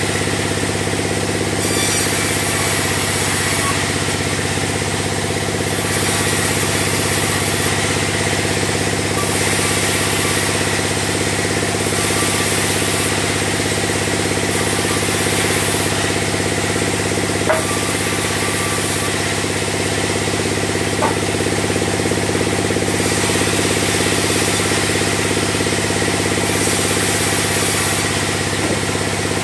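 Large sawmill band saw running with a steady machine drone as timber is fed through it. The high hiss of the blade in the wood comes and goes every second or two. Two sharp knocks come in the second half.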